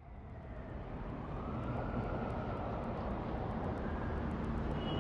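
A steady rushing noise of a passing vehicle, swelling over the first second and then holding.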